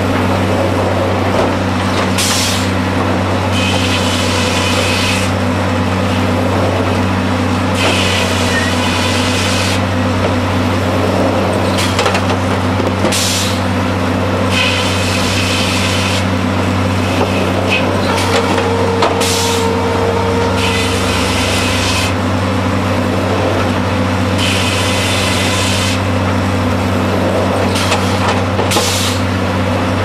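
Hurdle two-headblock circle sawmill running under load as it saws crossties: a steady low mechanical drone, with short bursts of high noise every couple of seconds.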